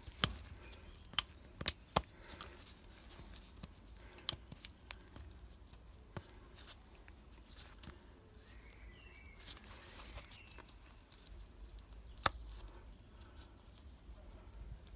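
Sharp clicks and light handling noises from a new oil filter element and its housing cap being fitted together by hand: a quick run of clicks in the first two seconds, then single clicks about four and twelve seconds in.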